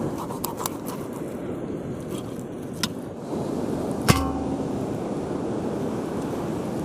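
Small knife cutting and scraping through fish flesh on a wooden board, with a few light clicks and taps over a steady background rush. About four seconds in comes a sharp knock with a short metallic ring.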